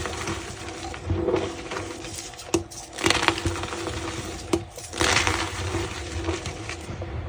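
A reformed block of gym chalk being crushed, with crumbly crunching that comes in surges about every two seconds and a couple of sharp cracks between them.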